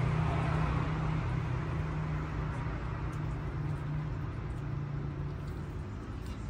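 Low, steady hum of a motor vehicle engine with traffic noise, easing off after about five seconds.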